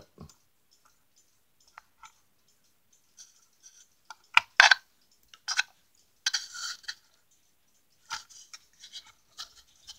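Hands handling a wooden cuckoo clock and its cuckoo door and bird wire, making a scattering of small scrapes, rubs and clicks. The loudest are two quick scrapes together about four and a half seconds in, with a longer rub about six and a half seconds in.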